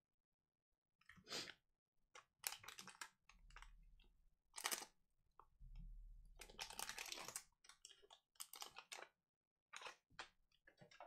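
Foil wrapper of a Donruss Soccer trading-card pack being torn open and crinkled by hand: a run of faint, irregular crackles and rips, the longest a couple of seconds after the middle.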